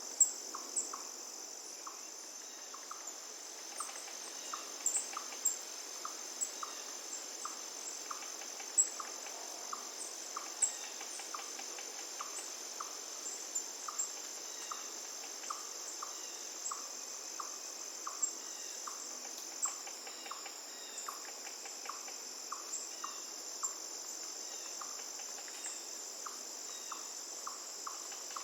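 Crickets trilling steadily in a high, continuous drone, with a lower short chirp repeating about one and a half times a second and scattered sharp clicks over it.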